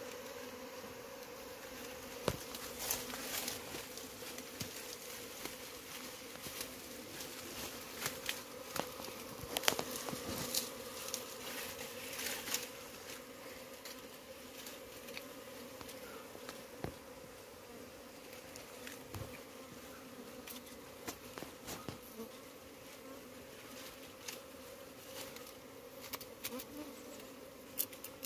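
Honeybee colony buzzing in a steady hum while its nest in a rock crevice is opened by hand. Scattered sharp clicks and knocks come over the hum.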